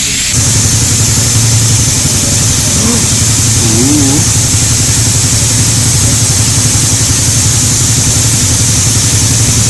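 A motorised suction tool switches on and runs steadily with a low hum and a hiss, drawing water out of a car's differential.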